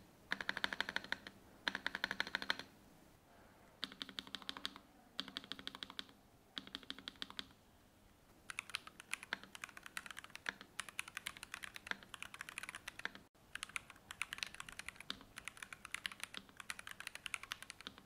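NuPhy Halo65 mechanical keyboard: rapid repeated spacebar presses in short bursts, three louder bursts followed by three quieter ones, then steady fast typing across the keys. The spacebar is tested as a standard keycap against NuPhy's noise-suppressing GhostBar.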